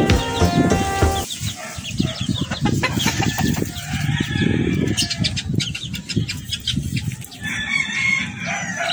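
Music cuts off about a second in, then a chicken clucks and calls amid rustling and wing-flapping noises.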